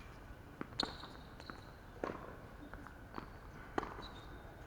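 Tennis ball impacts on a court, three sharp ones spaced a second or two apart, with lighter footfalls and short high squeaks of shoes on the court surface.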